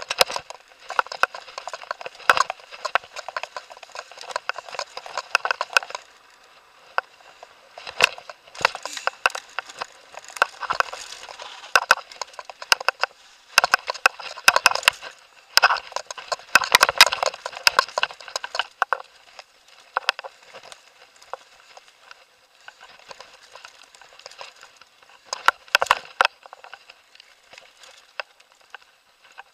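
Mountain bike and its mounted camera rattling and clattering over a bumpy dirt trail: a dense run of knocks and rattles that thins out over the last third, with a short busy patch near the end.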